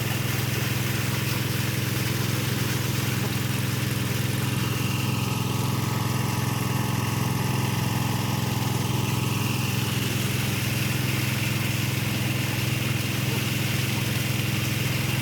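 An engine running at a steady idle, a constant low hum that does not change in speed.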